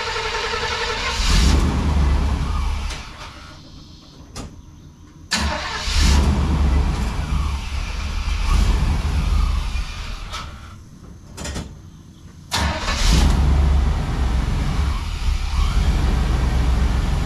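1992 Chevy C1500's 350 small-block V8 running, in three loud spells that each start abruptly, with quieter gaps between them, as the truck is driven up onto ramps. The owner suspects a failing fuel pump, with the truck down on power and dying easily.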